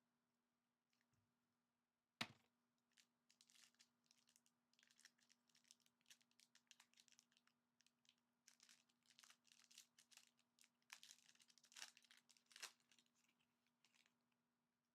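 Trading card packaging being torn open and crinkled: a sharp click about two seconds in, then a long run of irregular tearing and crinkling of wrapper material.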